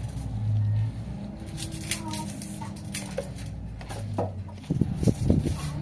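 Boiled eggs being cracked and peeled by hand, with short clicks of shell, over a low steady hum; a small child's voice comes in near the end.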